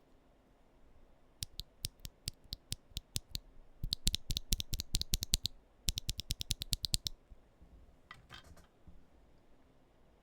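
A single MMD Princess v3 tactile switch (60 g) pressed and released over and over: sharp clicks at about five a second, then two fast runs of rapid clicks, and a softer brief rattle near the end.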